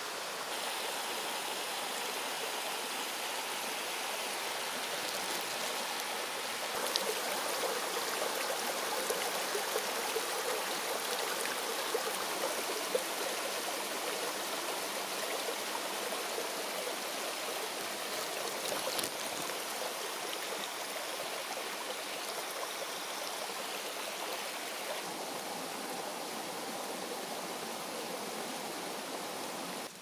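A mountain stream rushing and splashing over rocks, a steady water noise that shifts a little in tone twice.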